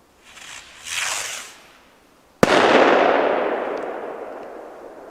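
Tropic Fireworks Circoblitz TR 1 firework going off: a hissing rush swells and fades over the first second and a half. Then, about two and a half seconds in, comes one sharp loud bang, followed by a long fading tail of noise.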